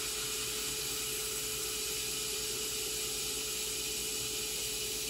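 Hot air rework station blowing a steady hiss of hot air, with a steady hum underneath, heating the Tristar charging IC on an iPad 7 logic board to melt its solder so it can be lifted off.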